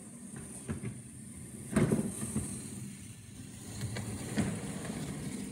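Children's electric ride-on toy car driving over a tiled floor: the motor drive and hard plastic wheels make a steady low rumble, broken by a few knocks, the loudest about two seconds in.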